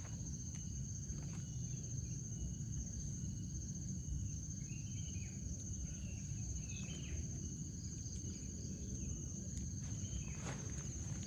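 Insects chirring in one steady, high, unbroken tone, over a low outdoor rumble, with a few faint chirps in the middle.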